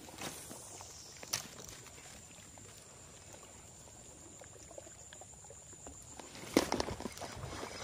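Handling noise from a spinning rod and reel while weed is cleared off a soft frog lure: a couple of small clicks, then near the end a sharp knock followed by a short rattling clatter.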